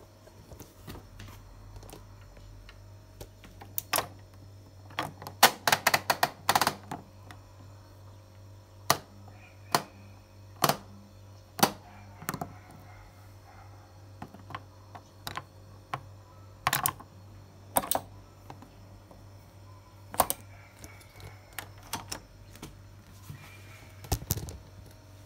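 Program selector dial of a Beko BKY 2317 B washing machine clicking through its detent positions as it is turned: a fast run of clicks about five to seven seconds in, with single clicks scattered through the rest. A low steady hum sits underneath.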